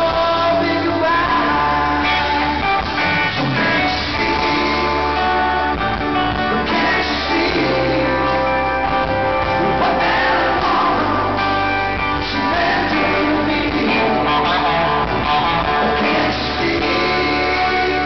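Live rock band playing: electric guitar, bass guitar and drums, with a male voice singing.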